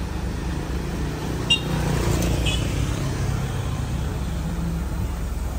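Mitsubishi Canter Euro 4 truck's diesel engine running as the truck pulls away down the street, with a motor scooter passing close. Two brief high chirps sound about a second and a half and two and a half seconds in.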